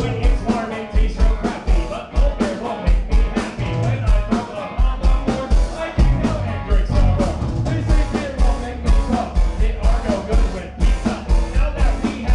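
Live rock band playing loudly: drum kit with a steady kick-drum beat, electric guitar and bass guitar, with a singer's voice over the top.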